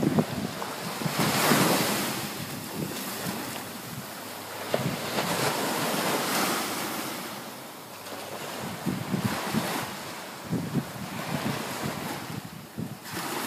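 Sea waves breaking and washing up the shore, swelling and fading several times, with wind buffeting the microphone.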